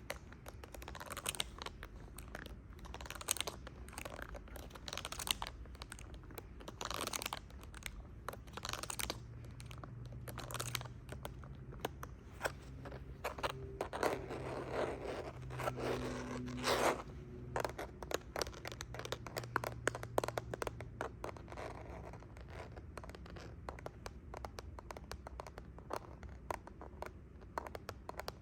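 Fingernails tapping and scratching on a handheld gadget's hard plastic surface, close to the microphone, as quick irregular clicks and scrapes. The scratching grows denser for a few seconds about halfway through.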